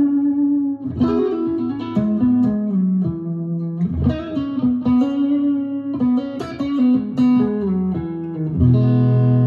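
Mulecaster Telecaster-style electric guitar played clean on its neck pickup through a Helix modeler into a full-range speaker: a line of single notes and double-stops, ending in a low chord that rings on near the end.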